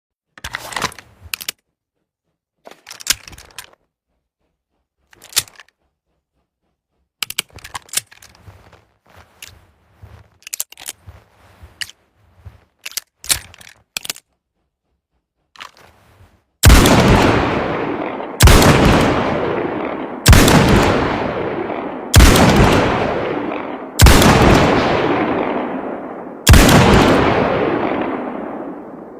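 Smith & Wesson Mk II Hand Ejector revolver: a series of short metallic clicks and small knocks from handling the gun, then six shots fired about two seconds apart, each followed by a long fading echo.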